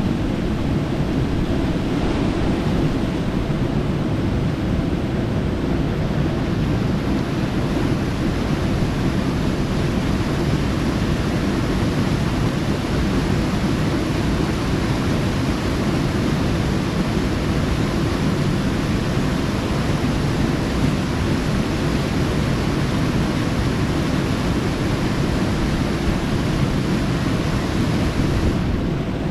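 Small mountain cascade rushing over rocks close by: a steady, loud rush of water.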